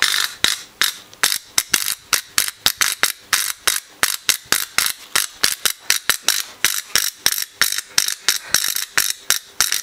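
Electric arc at a microwave-oven-transformer electrode buried in wet iron sand, crackling in rapid, irregular sharp snaps, several a second.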